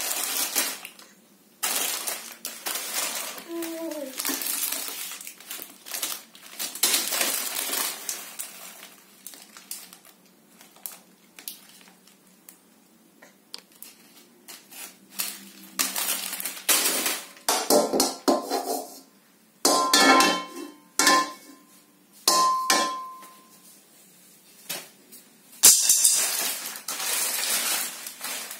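Plastic instant-noodle packets crinkling and a steel wok and spatula clattering as they are handled, on and off, with a few short metallic rings about two-thirds of the way through.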